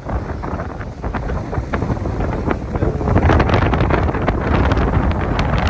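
Wind blowing hard across the phone's microphone, a low rumbling buffet with crackles, growing louder about three seconds in.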